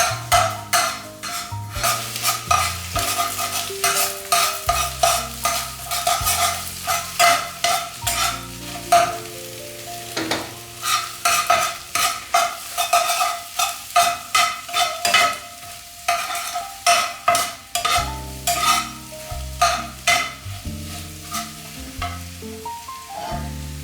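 Food sizzling in a frying pan while a spatula stirs and scrapes it, with repeated short scraping strokes throughout.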